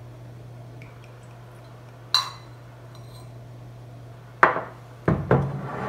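Glass bottle and tasting glass clinking and knocking while cognac is poured: one sharp ringing clink about two seconds in, then three quick knocks near the end, over a steady low hum.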